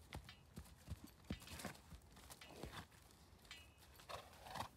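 Faint, scattered steps and rustles in dry fallen leaves on grass: a handful of soft crunches, irregularly spaced.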